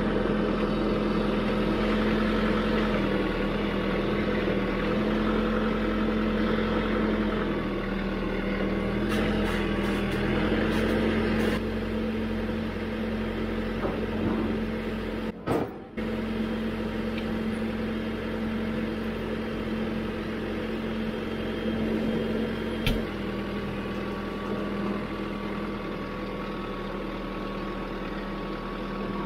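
Branson 5220 tractor's diesel engine running steadily as the tractor backs down off a flatbed trailer. There is a brief dip about halfway and a single sharp click about two thirds of the way through.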